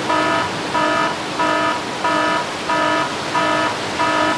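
Electronic beeper sounding an even run of about six pitched beeps, each under half a second, roughly one and a half a second, over a steady hiss.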